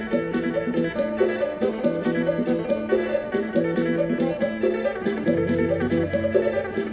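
Phin, the Isan plucked lute, playing a quick melody of short plucked notes over a steady drone. A low note comes in about five seconds in.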